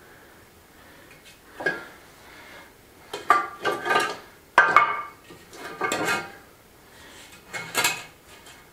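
Hard clinks and scrapes of stone slabs and a spirit level being set down and shifted on a stone floor, in about five short bursts with a slight ring.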